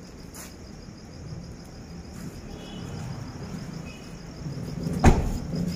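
Crickets chirring steadily in the night air, with a low background murmur and a single sharp knock about five seconds in.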